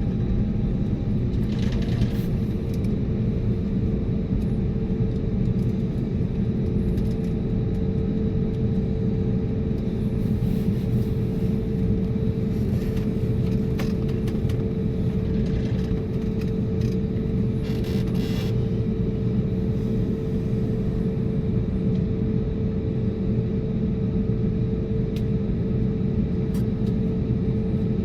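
Cabin noise of an Airbus A320neo with CFM LEAP-1A engines at low power during taxi: a steady low rumble with a steady hum, and a few faint brief hisses.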